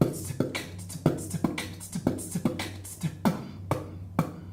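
A person beatboxing: a quick, steady beat of low kick-drum thumps and sharp, hissing snare and hi-hat sounds made with the mouth, stopping shortly before the end.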